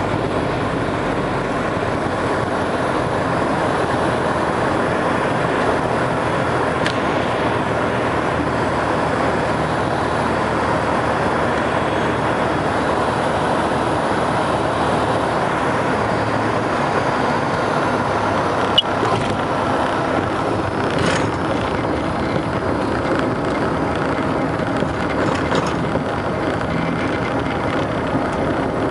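Steady engine and propeller drone heard inside a small airplane's cabin as it comes in to land, with a few faint clicks.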